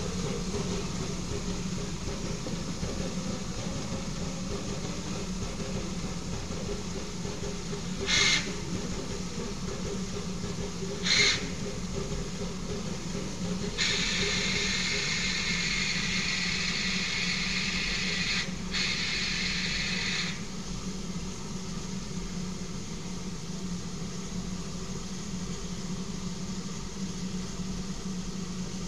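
Steam locomotive standing with a steady low hum, letting off two short sharp hisses of steam, then a steady hiss of steam lasting about six seconds around the middle.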